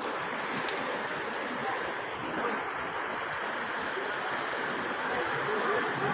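Heavy rain pouring down, a steady, even hiss of falling and running water.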